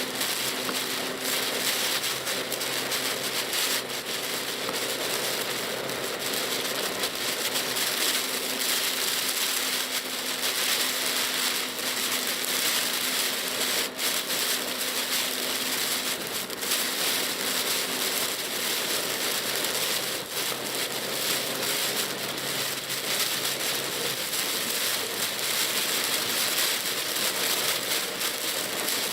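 Typhoon rain pattering on the Pajero Mini's roof and windscreen, heard inside the cabin as a steady hiss full of small sharp ticks, with a low steady hum from the car underneath.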